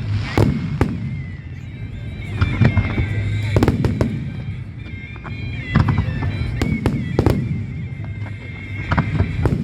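Aerial fireworks shells bursting overhead, a string of sharp bangs about once a second, some in quick pairs, with echoing tails.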